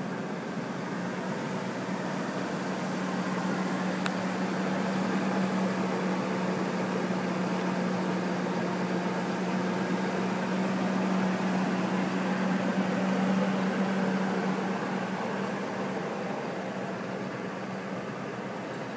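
Ford pickup's engine idling with the hood open: a steady hum that grows louder in the middle and eases off near the end.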